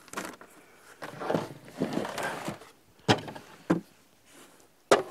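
Wooden Langstroth hive covers being handled and set down on a plywood table: a few sharp wooden knocks with some scraping between them, the loudest knock near the end.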